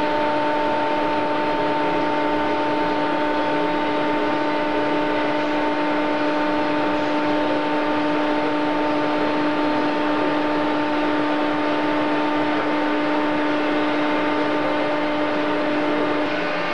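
Thermwood CNC router's spindle running steadily, a constant whine over a broad rushing noise.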